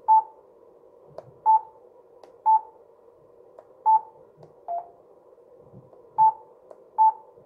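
Yaesu FTM-400XDR mobile radio giving a short key beep at each tap on its touchscreen keyboard as a call sign is entered: seven high beeps about a second apart, one of them lower in pitch, over a faint steady hum.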